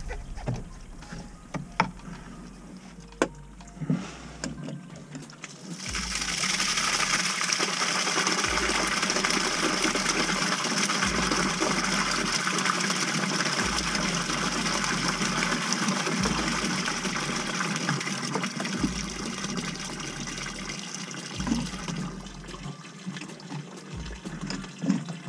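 Backed-up water from a clogged 2-inch kitchen drain line gushing out of an opened pipe joint and splashing onto the dirt floor, as the blockage's pressure is let off. A few knocks come first; the flow starts suddenly about six seconds in, runs steadily, and thins to a smaller stream near the end.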